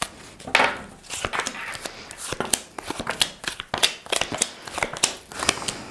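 A deck of tarot cards being shuffled and handled by hand: a run of quick, irregular card snaps and flicks.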